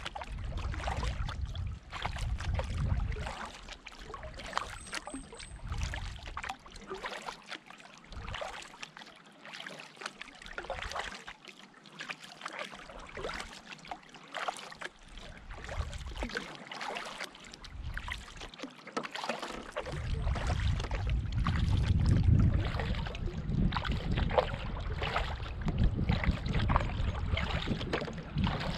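Canoe paddling: water splashing and dripping off the paddle blade as it strokes through the water. Wind rumbles on the microphone in the first few seconds and again for the last third.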